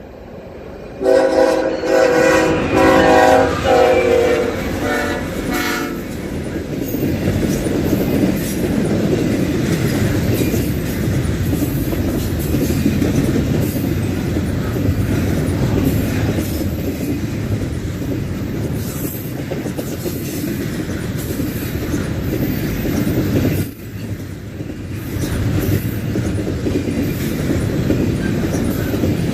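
A BNSF freight locomotive's multi-note air horn blows loudly for about five seconds, dipping slightly in pitch near its end as the locomotive passes. Then comes the steady rumble and wheel clatter of the long freight train rolling by.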